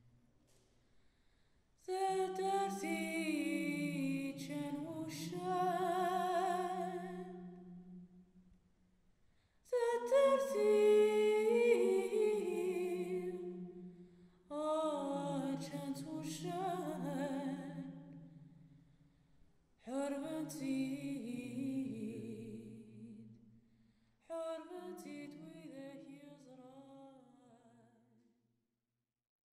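Unaccompanied singing voice in five phrases, each starting sharply and fading out, with short pauses between them.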